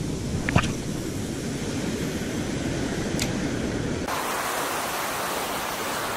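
Ocean surf washing and foaming around the shore, a steady rushing hiss that turns brighter from about four seconds in, with a brief click a little over half a second in.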